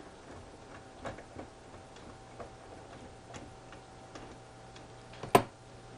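Light metallic clicks from an antique longcase clock movement being turned and handled, coming at uneven intervals, with one sharp, much louder click near the end.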